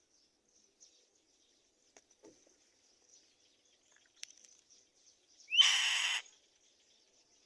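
A black-winged kite gives a single harsh, rasping screech lasting about half a second, near the end. Before it there are only a few faint ticks over a faint steady high-pitched background hiss.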